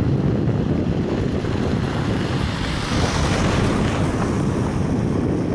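Wind buffeting the microphone: a steady, rough low rumble, with a hissing swell about three seconds in.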